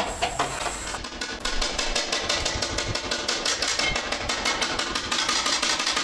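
Small hammer tapping rapidly on metal inlay set into a carved wooden lid, many light, even taps a second, starting about a second in.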